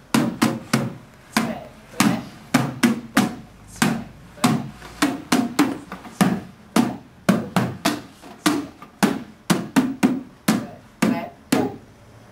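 Percussion: sharp, drum-like hits in an uneven, syncopated rhythm, about three a second.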